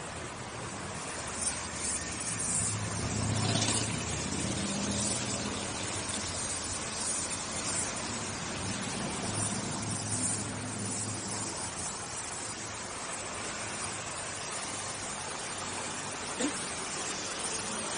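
Gas welding torch hissing steadily as it heats and welds a steel frame, with motor vehicles passing on the street twice, adding a low engine rumble.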